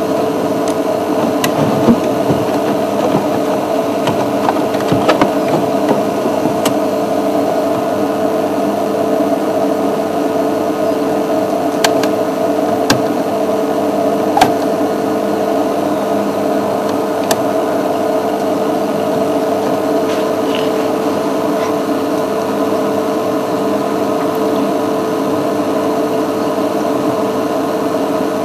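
A steady mechanical hum made of several constant tones, with a few faint sharp clicks in the first half.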